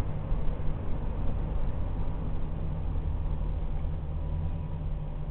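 Electric commuter train passing close by: a steady low rumble of wheels on the rails, easing slightly near the end as the last car goes by.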